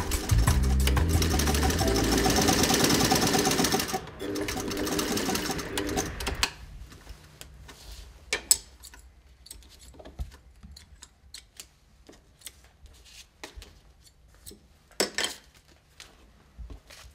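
Black Pfaff industrial sewing machine stitching at speed, a fast steady clatter that eases off and stops after about six seconds. Scattered light clicks and taps of the machine being handled follow.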